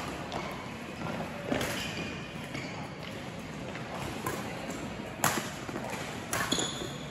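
Badminton rally: rackets strike the shuttlecock with a few sharp cracks, about a second and a half in, just after five seconds and again around six and a half, while shoes squeak briefly on the court floor.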